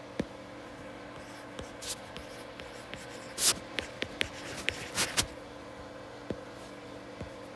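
A stylus tapping and scratching on a tablet's glass screen as a word is handwritten: a string of light ticks and short scrapes in the middle few seconds, with a single click near the start and one more near the end.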